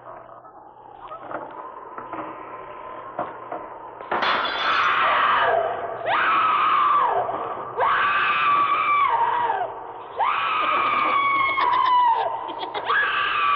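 A series of five loud, drawn-out shrieking cries, each about two seconds long and dropping in pitch as it trails off. They begin about four seconds in, after a quieter stretch with a few scattered clicks, on a vintage Halloween sound-effects record.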